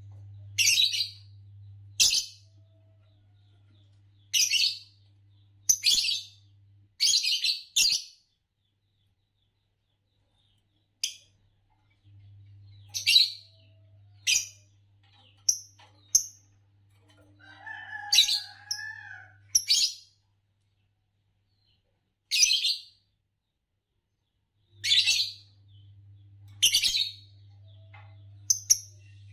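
A pair of green Fischer's lovebirds giving short, sharp, high chirps, singly and in quick pairs, spaced irregularly with pauses of a second or more between them.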